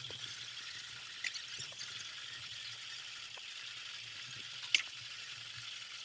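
Steady faint hiss of milk squirting from a buffalo's teats into a partly filled metal bucket during hand milking, with a few faint clicks, one sharper about five seconds in.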